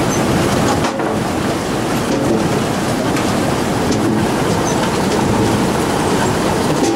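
Grimme SE 150-60 NB trailed two-row potato harvester running while lifting: a steady, dense rattle of its sieve webs and conveyors with potatoes tumbling over them.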